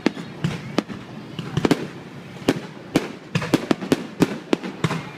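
Fireworks bursting: a rapid, irregular series of sharp bangs, about a dozen in a few seconds, over a steady background rumble.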